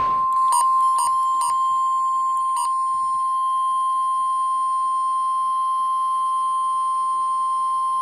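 NOAA Weather Radio's 1050 Hz warning alarm tone through a Midland HH54VP weather radio's speaker, one long steady tone heralding a severe thunderstorm warning. Four short clicks fall in its first three seconds as the radio's volume is adjusted.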